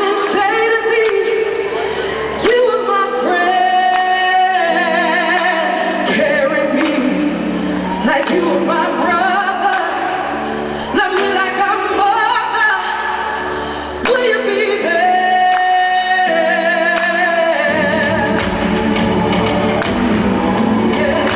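A female vocalist singing a slow ballad live over light accompaniment, holding long notes, heard through the arena's sound system. About 18 seconds in, the fuller band comes in underneath with bass.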